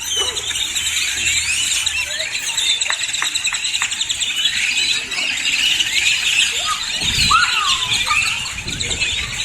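A flock of birds chattering: many high-pitched chirps and squeals overlap continuously, with a low rumble near the end.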